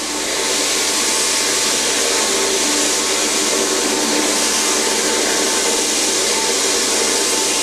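Ruwac DS2720-EX explosion-proof industrial vacuum pulling air through a 3-inch hose and wand as it sucks up spilled coffee grains: a steady rushing hiss with a faint motor hum beneath.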